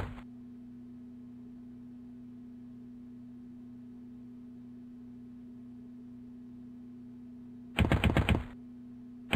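A steady low hum, and near the end two short bursts of rapid clicking, each under a second and about ten clicks a second.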